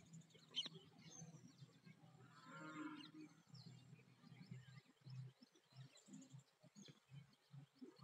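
A cow mooing once, a faint call lasting about a second near the middle, with a sharp click just before it and soft low taps after.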